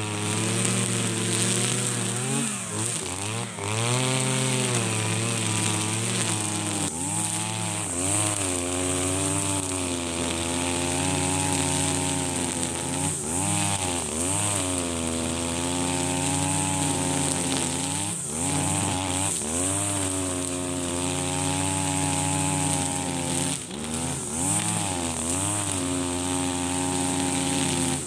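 Husqvarna 542RBS backpack brush cutter's 42cc two-stroke engine running at full throttle with 2.2 mm nylon line. Its pitch dips and recovers again and again as the line bogs in thick, tall grass.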